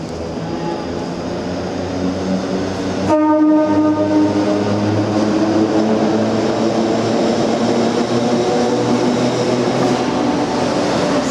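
Heritage Red Set electric train F1 running into an underground station, its rumble growing louder as it approaches. About three seconds in it sounds its horn once, briefly.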